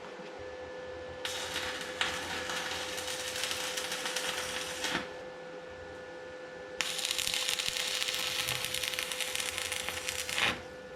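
Stick (arc) welding on steel pallet racking: two runs of crackling, sputtering arc, each about four seconds long. The first starts a little over a second in and the second just after the middle. A steady hum sounds under both.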